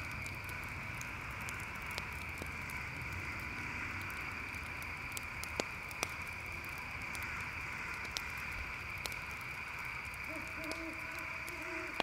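Steady chorus of crickets trilling, with scattered sharp crackles and pops from a campfire. Low repeated hooting calls come in near the end.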